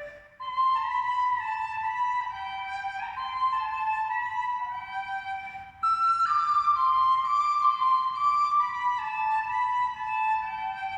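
Music: a flute-like melody, one line of held notes stepping down in pitch. After a brief gap at the start a phrase descends slowly, then a louder phrase begins higher about six seconds in and falls again.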